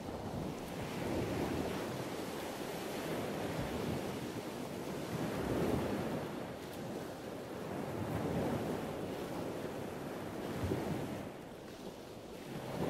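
Waves washing on a shore: a steady rushing noise that swells and eases every two to three seconds.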